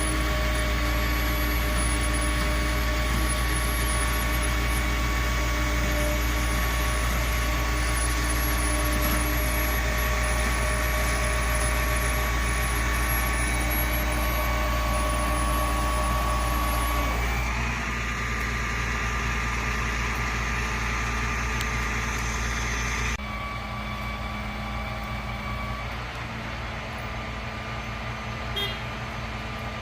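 A vehicle engine idling steadily, a deep hum with a few steady tones above it. It changes abruptly twice, about two-thirds of the way in and again a few seconds later.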